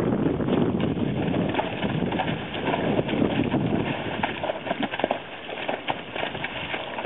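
Two horses' hooves splashing and stamping through a shallow rainwater puddle in quick, irregular strikes as they rear and play-fight.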